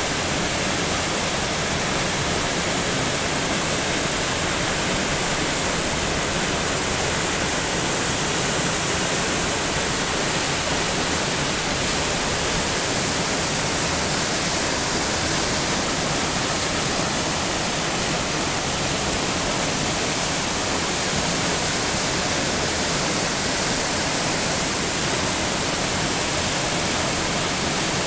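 Steady rushing of the Inversnaid waterfall and of the stream below it pouring over rocks.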